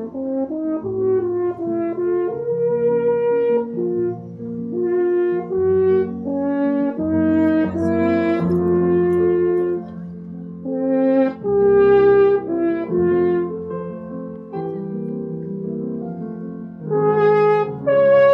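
French horn played live: a melody of sustained notes, each held for about half a second to a second, with short breaks between phrases.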